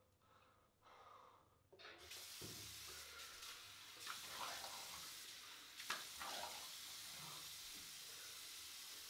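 Heavy breathing, then a bathroom tap turned on about two seconds in, running steadily into a sink, with a few splashes.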